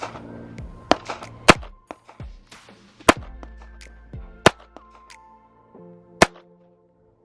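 Single shots from a GSG 1911-22 .22 LR pistol, five sharp cracks spaced one to two seconds apart, the first one fainter, over background music.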